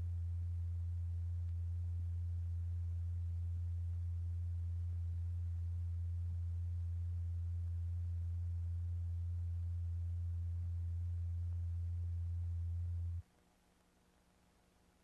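A low, steady pure tone, the audible vibration driving the kaolin in a cymatics experiment, held at one pitch with a fainter tone about an octave above. It cuts off suddenly about 13 seconds in.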